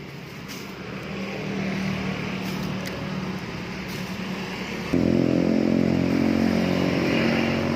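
A motor vehicle engine running steadily close by. About five seconds in it becomes suddenly louder and fuller, then holds at an even, idle-like pitch.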